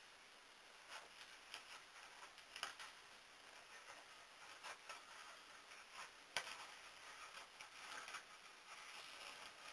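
Near silence with faint, scattered ticks and light rustles from a paper shadow puppet being handled on its rods. The sharpest click comes about six and a half seconds in.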